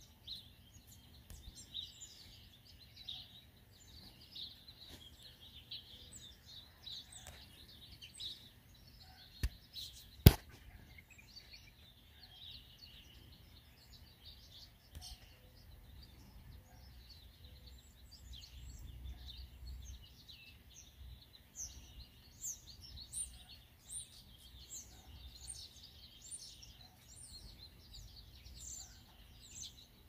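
Small birds chirping and singing over a low, steady background rumble. Two sharp clicks a little under a second apart about a third of the way through, the second the loudest sound.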